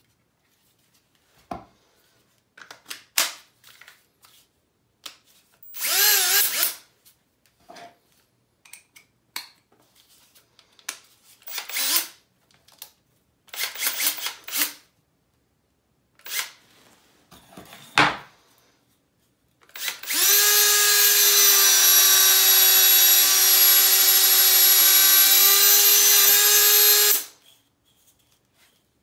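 Milwaukee M18 compact hammer drill/driver running at a steady speed for about seven seconds, driving a spade bit through a block of wood, then stopping. Before that come clicks and handling noises as the battery and bit are fitted, and a brief spin of the motor.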